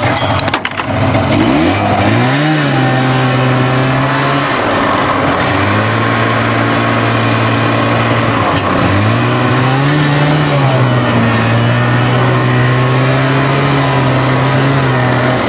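Car engine running steadily under load while the car drives, heard from inside the cabin; its pitch drops and climbs back to a steady level three or four times.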